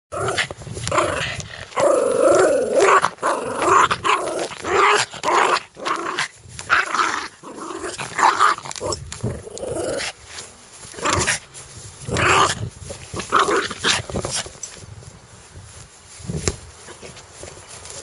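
Dog growling in a run of irregular bursts, loud through the first ten seconds and softer after that.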